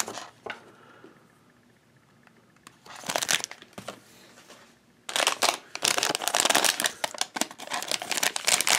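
Shiny foil blind-bag packet crinkling as it is handled and torn open: a short crinkle about three seconds in, then continuous dense crinkling and tearing from about five seconds in.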